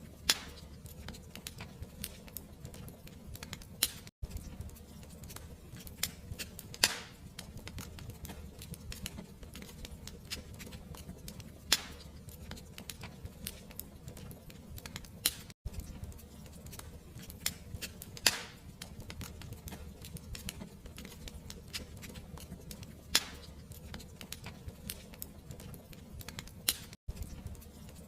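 Wood fire crackling in a fireplace: a steady low rumble with dense small crackles, and a sharper pop every five seconds or so. The sound drops out for an instant three times.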